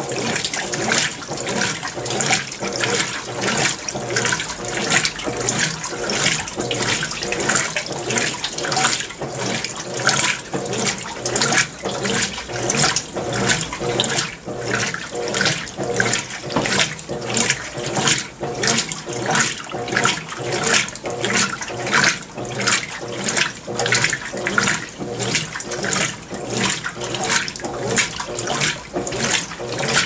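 Consul 16 kg top-load washing machine agitating a load of laundry, water sloshing in the tub in regular pulses about twice a second.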